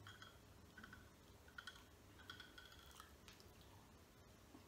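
Near silence with a few faint, light clinks, about a second apart, from a glass cappuccino cup and metal spoon being handled.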